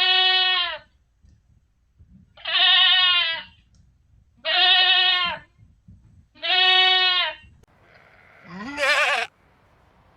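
Goat bleating five times: four similar bleats, each under a second and about two seconds apart, then a breathier bleat with a quavering pitch near the end.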